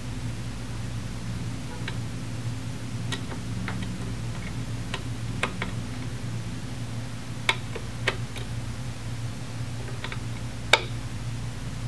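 Light, scattered ticks and clicks of a small screwdriver working the span adjustment on a gas analyzer's front panel, the sharpest near the end, over a steady low hum.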